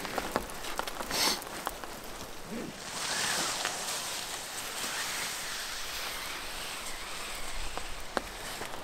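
Steady rain hiss. In the first second or so a nylon gear bag rustles and crinkles as it is handled.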